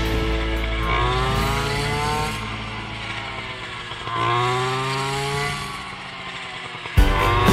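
Small engine of a handheld straight-shaft rice cutter revving up twice, about a second in and again about four seconds in, easing back toward idle after each; a louder sound cuts in abruptly near the end.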